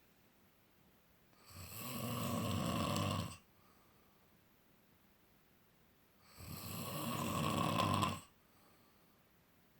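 Snoring: two long snores about five seconds apart, each lasting about two seconds, swelling louder and then stopping abruptly.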